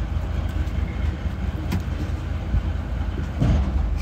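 Fishing boat's engine running steadily with a low pulsing rumble, while the net is hauled. A sharp knock comes a little before halfway, and a short louder sound with a rising pitch near the end.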